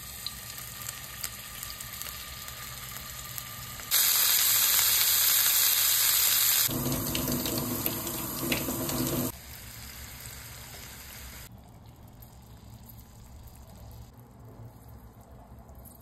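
Kitchen faucet running hard, water gushing into a plastic strainer scoop over a steel sink, loud for about five seconds in the middle. Before it, a softer steady hiss of meatballs frying in oil in a pan; after it, only a faint hiss.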